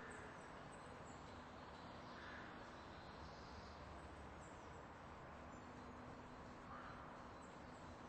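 Near silence: faint steady background noise and hum, with a few faint short sounds.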